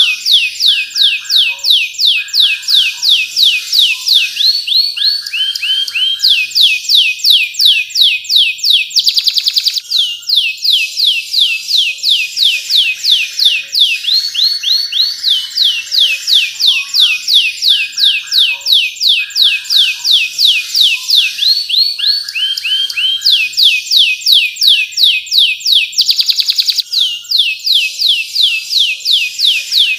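Domestic canary singing a continuous song of rapid repeated sweeping whistled notes, about four a second, mixed with lower buzzy rolls. Twice the song breaks into a very fast trill.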